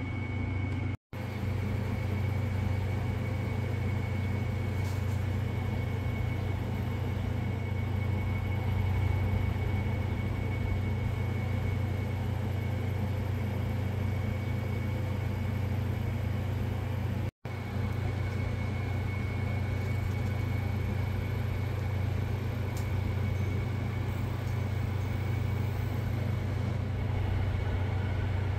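A steady low machine hum with a faint high whine above it, unchanging throughout and cut out abruptly for an instant twice, about a second in and about seventeen seconds in.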